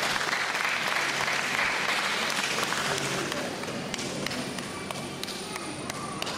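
Audience applause that dies away about four seconds in, leaving a few scattered claps.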